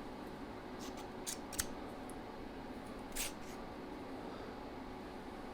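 A few short metallic clicks and scrapes from hand work on a small metal part, over a steady low machine hum.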